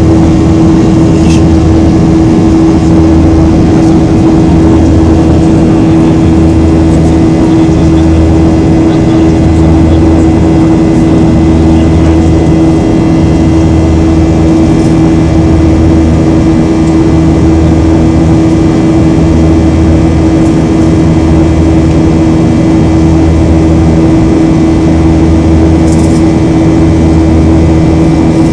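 Boeing 737-800's CFM56 jet engines running at climb power, heard from inside the passenger cabin: a loud, steady noise with a constant hum and a low throb that pulses about once a second.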